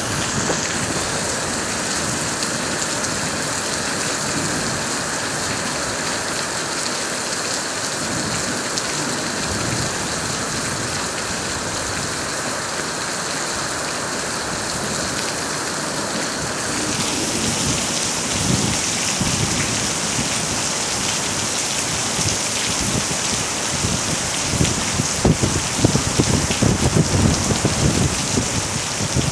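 Heavy thunderstorm rain falling steadily. About halfway through the hiss turns brighter, and toward the end heavier drops patter close by in irregular knocks.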